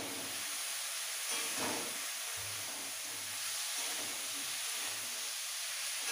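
Food sizzling in hot oil in a kadai, a steady frying hiss that swells briefly about a second and a half in.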